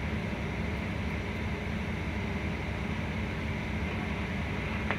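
Bus engine running steadily at high idle while the air compressor builds brake pressure. A faint click near the end marks the air governor cutting out at about 120 PSI, the pressure-release sound the driver is listening for.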